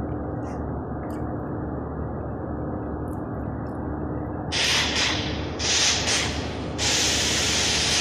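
A steady, muffled hiss. About halfway through, three loud bursts of harsh hiss come in, each lasting about a second, the last one held on.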